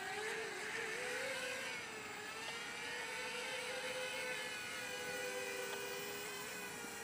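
OnagoFly mini quadcopter's motors and propellers whining as it lifts off and hovers low. For the first couple of seconds the pitch wavers up and down as it bunny-hops on too little throttle, then it settles into a steady whine.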